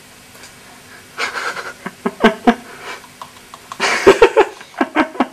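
Breathy, wheezing laughter in bursts, starting about a second in and getting stronger near the end, over a faint steady hum.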